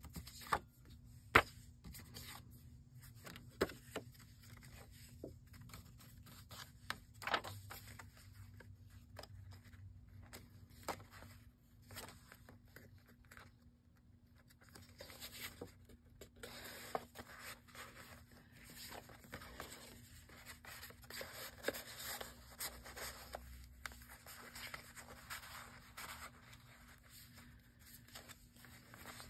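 Paper and cardstock being handled: sheets and journal pages rustling and scraping as they are shuffled and turned. A few sharp taps come in the first seconds, the loudest about a second and a half in.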